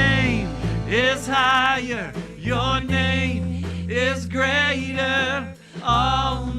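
Live worship song: voices singing long, wavering held notes over guitar and bass backing.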